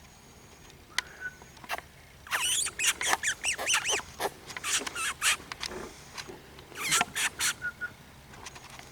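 Predator call squeaking like a rodent in distress: a quick series of high squeals that bend up and down in pitch, starting about two seconds in and lasting about five seconds, after a few sharp clicks.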